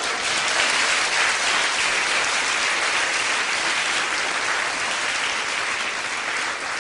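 A large theatre audience applauding, swelling in at the start and easing off a little toward the end.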